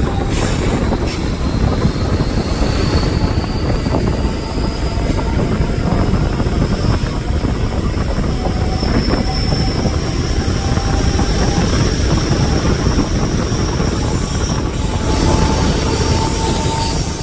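High Speed Train coach running on the track, heard from its open door window: a steady rumble of wheels on rail mixed with wind rushing over the microphone. A faint high whine rises slowly in pitch through most of it.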